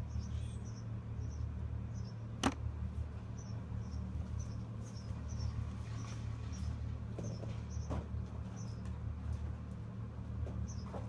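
An insect chirping about twice a second over a steady low hum, with one sharp click about two and a half seconds in and a few softer knocks later.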